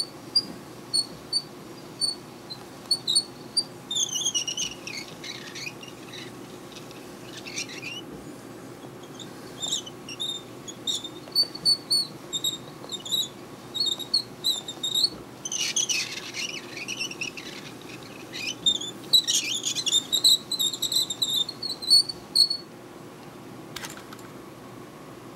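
A plastic Doraemon Happy Meal toy pushed back and forth over carpet by hand, its wheels and works giving runs of short high squeaks with a raspy scraping between them. The squeaking stops about three seconds before the end.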